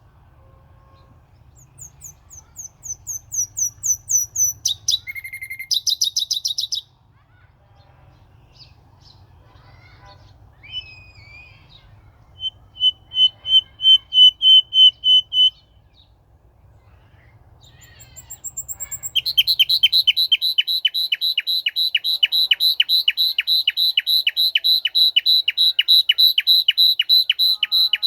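A songbird singing: first a run of about ten quick falling whistled notes, then a short row of steady repeated notes, and from about two-thirds of the way in a long, fast, even trill of repeated notes that cuts off abruptly at the end.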